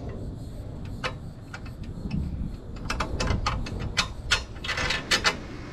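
Scattered metal clicks and clinks from a steel awning arm being fitted and worked on its bearing pivot post, with a short scraping rattle near the end.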